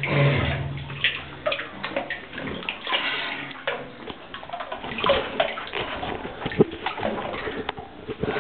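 Water sloshing and gurgling close to the microphone, with irregular small splashes, as a caver moves partly submerged through a flooded cave sump.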